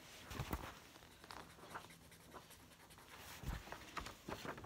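Faint scratching of a small pen colouring on paper, with a few soft taps.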